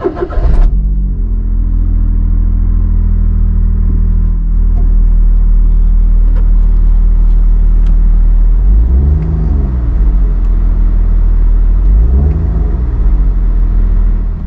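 Smart Fortwo 451's 1.0-litre turbocharged three-cylinder petrol engine starting, then idling steadily, heard from inside the cabin. It is given two brief blips of the throttle about nine and twelve seconds in, the pitch rising and falling each time.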